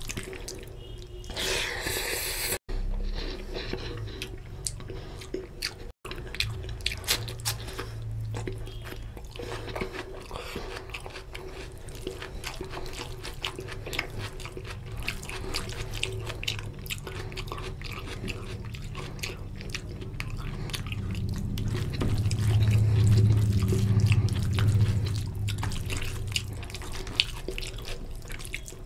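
Fingers squeezing and mixing basmati rice into oily mutton curry on a steel plate, with wet squelching and many small sticky clicks. There is a brief hissing rush about two seconds in, and a low rumble swells for a few seconds near the end.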